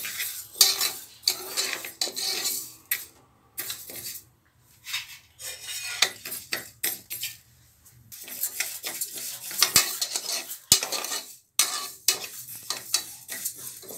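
Steel ladle stirring and scraping split moong dal as it dry-roasts in a pressure cooker pot, heated until its raw smell goes. Quick scrapes and clinks of metal on metal mix with the rustle of the grains, with a quieter spell near the middle.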